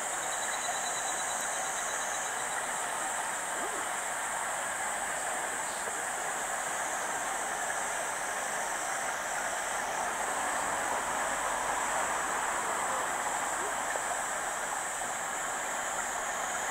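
Steady outdoor background noise: an even rushing hiss, unchanging throughout, with no distinct events standing out.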